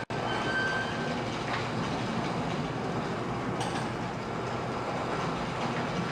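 LiftMaster Logic 5.0 commercial garage door opener closing a sectional door: a steady mechanical rumble and rattle of the motor and moving door, with a few short knocks. There is a split-second dropout at the very start.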